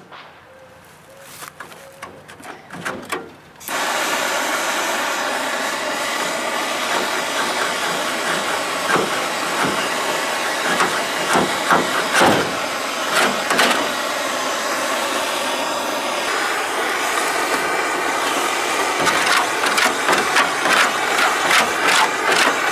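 Handheld torch lit about three and a half seconds in, its flame then hissing steadily with small flickers.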